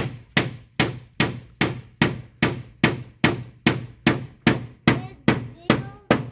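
A hammer driving nails into a wooden fence board, struck at a steady rhythm of about two and a half blows a second.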